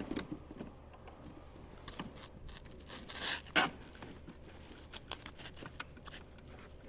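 Faint handling noise: scattered small clicks and taps, with a brief scraping rustle a little over three seconds in.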